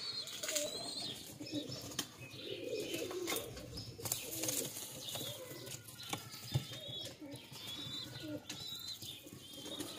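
Domestic pigeons cooing low and faintly while pecking at grain, with a few scattered clicks and short high chirps from small birds in the background.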